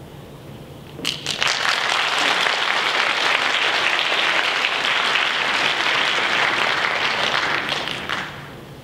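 Audience applauding, starting about a second in with a few scattered claps, then steady, and dying away near the end.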